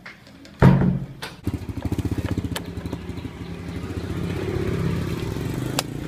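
Motorcycle engine running with a fast, even putter, after a loud thump about half a second in.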